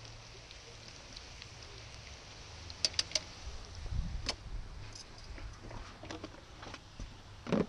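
A few sharp clicks of metal tongs about three seconds in and a louder knock near the end, with small scattered ticks, over a faint low rumble.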